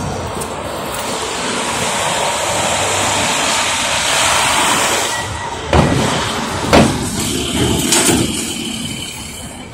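Heavy truck passing close by in street traffic, its engine and tyre noise swelling to a peak and then fading. Three sharp bangs come a little past halfway, about a second apart.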